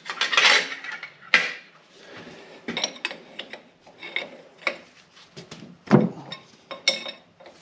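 Metal hand tools clinking and clattering in an irregular string of sharp knocks and rattles as hydraulic line fittings on a tractor's remote valve are worked loose, with a heavier knock about six seconds in.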